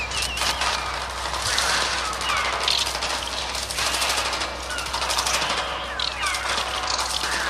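Mixtur-Trautonium electronic bird effects: a dense, rapid fluttering of pulses like a mass of beating wings, with short falling squawks cutting through it now and then.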